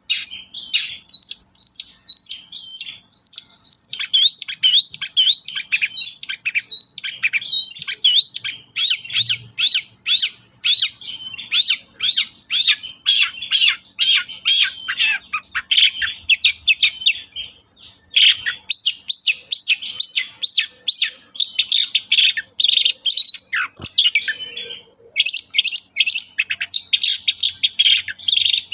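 Long-tailed shrike (cendet) singing a fast, unbroken stream of short, sharp chattering notes and whistled glides, several a second. A single sharp click sounds about three-quarters of the way in.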